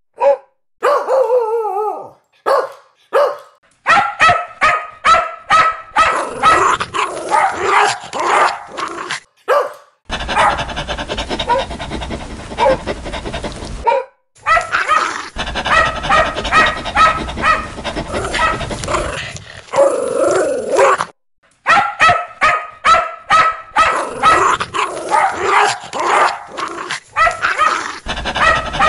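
Dogs barking loudly and aggressively in quick runs of barks, several separate recordings cut one after another with brief silent breaks. A drawn-out, wavering cry comes in the first couple of seconds.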